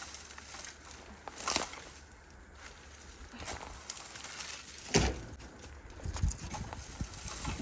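Dry sagebrush debris being raked and gathered: scattered rustling and scraping, loudest about five seconds in.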